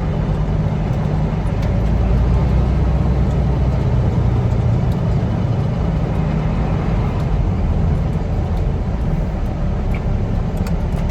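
Heavy dump truck's diesel engine running steadily, heard from inside the cab, a little louder for a couple of seconds near the start.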